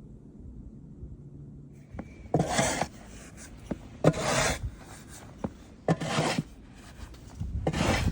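Four rasping scrapes, each about half a second long and evenly spaced about two seconds apart, with faint clicks between them.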